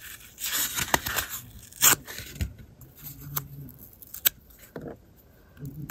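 Cardboard being torn by hand into small pieces: irregular bursts of ripping and crackling, with sharp snaps about two seconds and about four seconds in.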